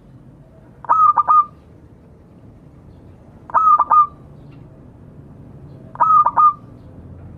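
Zebra dove (perkutut) cooing its call: three short phrases of quick staccato notes, repeated about every two and a half seconds.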